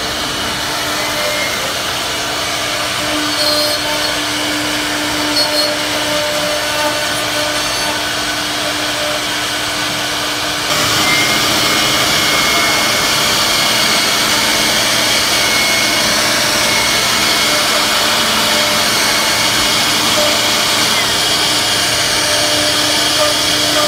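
CNC router spindle carving a wooden door panel: a steady cutting noise with a held whine. About eleven seconds in it turns suddenly louder and brighter.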